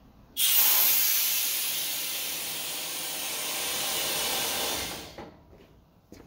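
Compressed air hissing out of a pair of double-bellows air-suspension bags as they are deflated, the bags collapsing and the frame dropping. The loud hiss starts suddenly about half a second in and dies away after about five seconds.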